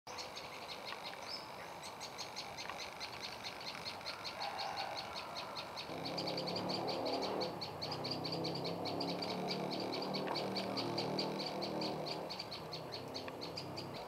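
Small songbird locally called the prenjak lumut singing a fast, steady series of sharp, high chip notes, about six a second. From about six seconds in, a lower rapid pulsing sound joins underneath for about six seconds.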